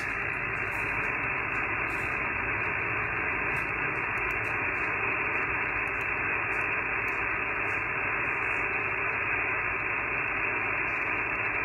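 HF radio receiver's static hiss from its speaker, steady and cut off sharply above about 3 kHz by the sideband filter. The radio is tuned in upper sideband to a 40-metre channel with no signal on it.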